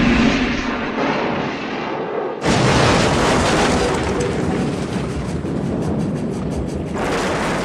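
Film sound effects of a steam locomotive crashing and exploding. A rushing noise gives way to a sudden loud blast about two and a half seconds in, followed by a long, heavy crash of wreckage and fire.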